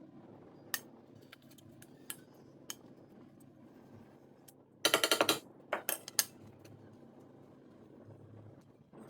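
Utensils clattering during food preparation: scattered sharp taps and clicks, then a loud burst of rapid rattling strokes lasting about half a second, about five seconds in, followed by a few more clicks.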